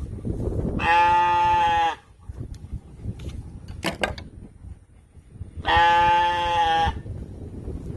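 A sheep bleating twice, each call about a second long, while it is held in a stand for hoof trimming.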